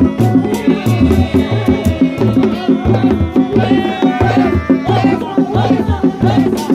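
Dogdog drums of a Sundanese reak ensemble, several single-headed hand drums beaten with the palm in a steady interlocking rhythm of deep thumps. A wavering high melody line sounds over the drumming for the first few seconds.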